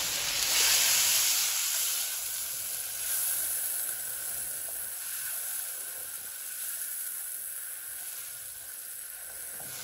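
Beef head meat, tomatoes and spices frying in oil in a wok: a steady sizzling hiss, loudest in the first couple of seconds and then slowly dying down.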